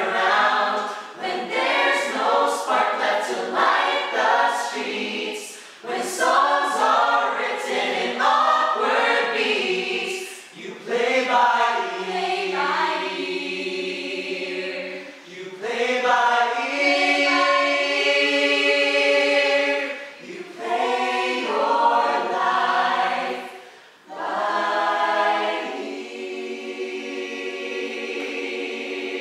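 A mixed ensemble of male and female voices singing a cappella in close harmony. The song moves in short phrases with brief breaks, with a long held chord about halfway through and another near the end.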